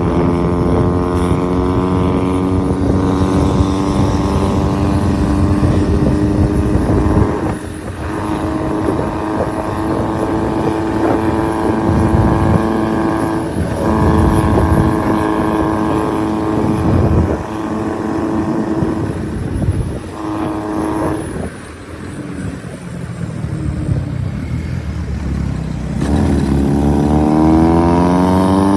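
Diesel vehicle engine running hard under load on a mountain road, its pitch holding steady with several brief dips in loudness, then rising steadily as it revs up near the end.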